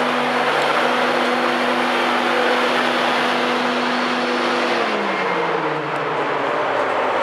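Class 91 electric locomotive standing at the platform with its onboard machinery running: a steady hum of several tones over a loud rushing noise. About five seconds in, the hum slides down in pitch as the machinery winds down.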